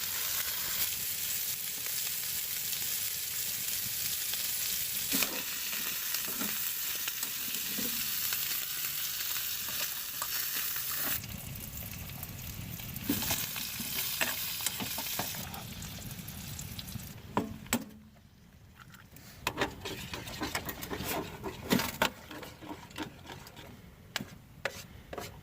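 Chopped sausage sizzling and frying in a bare titanium pan on a wood stove, stirred with a titanium spoon. The sizzle is steady at first, dies down past the middle, and is followed by scattered clicks and scrapes of the spoon against the pan.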